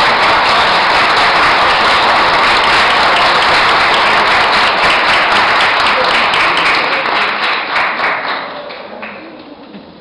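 A group of people applauding with steady hand-clapping that fades away about eight or nine seconds in.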